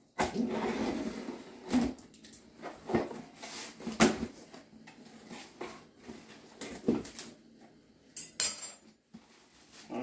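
A stick vacuum's box and packaging being opened and handled: rustling and scraping, with several sharp knocks and clatters of parts, the loudest about four seconds in.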